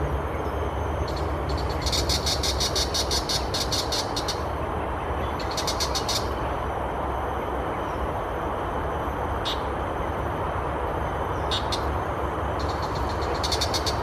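Tiger shrike calling: runs of fast, harsh, evenly repeated notes, a long run about two seconds in, a shorter one near six seconds, a few single notes, and another run near the end. A steady rumble runs underneath.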